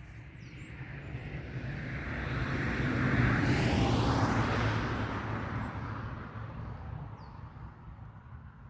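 A vehicle passing on a 110 km/h highway: tyre and engine noise swells to its loudest about three and a half seconds in, then fades as its pitch drops.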